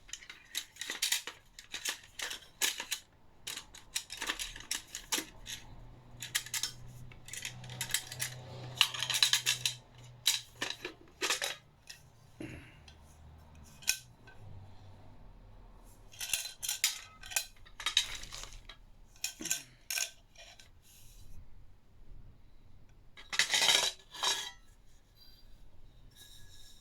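Metal parts of a Swiss Army field stove being handled and fitted together: irregular clinks, clatters and short scrapes of metal on metal.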